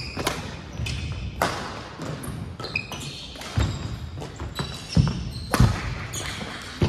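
Badminton rally on a hardwood gym floor: sharp cracks of rackets striking the shuttlecock every second or so, with sneakers squeaking on the wood. Two heavy thumps from footfalls about five seconds in are the loudest sounds.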